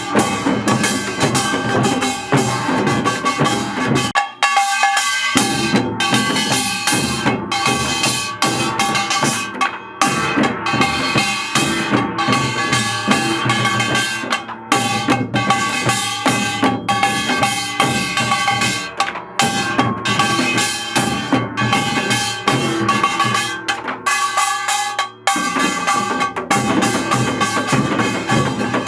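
Music with a steady drum-kit beat (bass drum and snare), dense and loud throughout; the low end drops out briefly twice.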